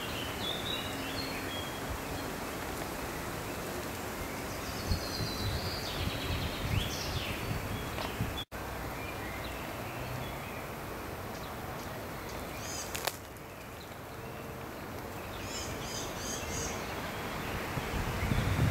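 Small songbirds chirping in short phrases a few times over a steady rushing background noise with a low rumble. The sound drops out for an instant about eight seconds in, and a sharp click comes around thirteen seconds.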